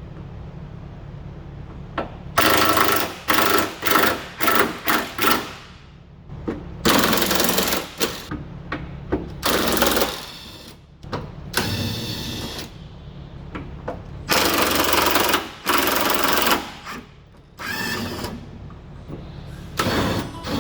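Impact wrench hammering in about a dozen short bursts, each half a second to a second long, loosening bolts on the car's underside.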